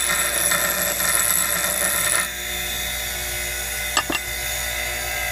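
Diamond grinding segment held against a spinning bench grinder's abrasive wheel, a harsh grinding hiss as its glazed face is worn down to open up the diamonds. The segment is lifted off about two seconds in, the grinding stops abruptly, and the grinder's motor runs on alone; about four seconds in there is a sharp double click as the segment is set down on the bench.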